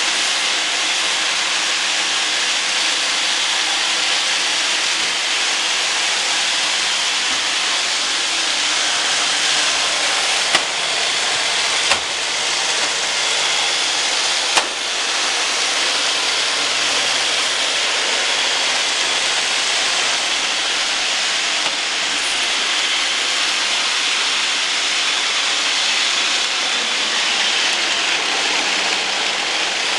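Roomba robot vacuum running steadily: the even whirring hiss of its vacuum fan and brushes, with three short sharp knocks in the middle.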